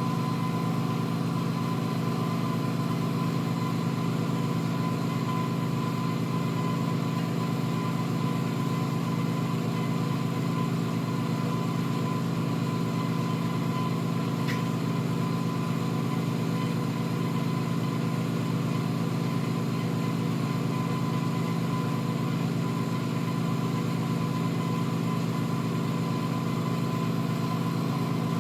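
A motor-driven machine running with a steady low hum and a thin constant tone above it. There is one faint tick about halfway through.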